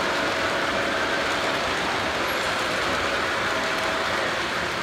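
Model train cars rolling past on the track: a steady rumble of wheels on the rails, with a faint tone that fades in and out.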